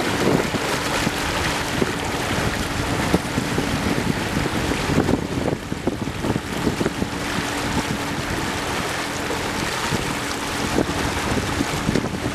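Boat under way: a steady engine hum under a continuous rush of water and wind on the microphone.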